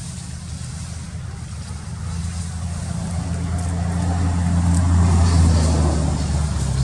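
A motor vehicle's engine running steadily, growing louder from about two seconds in as it comes closer, with a faint insect-like hiss above it.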